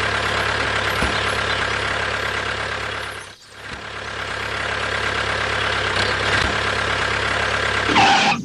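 Truck engine running steadily with a low hum. It fades out briefly about three and a half seconds in and then comes back.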